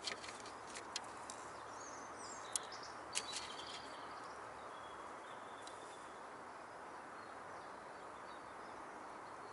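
Steady outdoor background hiss with faint birds chirping, and two small sharp clicks about two and a half and three seconds in.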